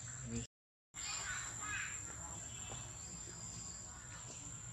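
Outdoor ambience of insects droning steadily on a high pitch, with a few short chirping calls about a second in. The sound cuts out for a moment about half a second in.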